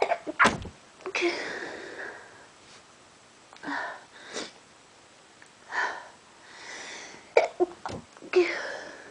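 A person sneezing repeatedly during an allergy attack. Several sudden sneezes come in a row, with drawn-in breaths between them.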